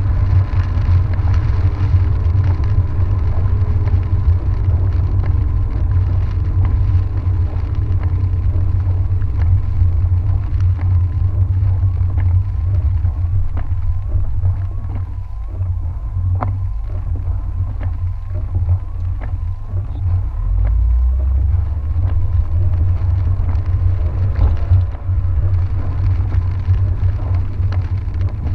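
A car driving on a wet road, heard from inside the cabin: a steady low rumble of road and engine noise, with a single sharp tick about halfway through.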